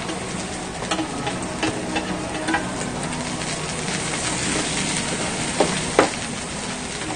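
Pork belly sizzling steadily on a hot grill plate, with metal tongs clicking against the plate and meat now and then; the sharpest click comes about six seconds in.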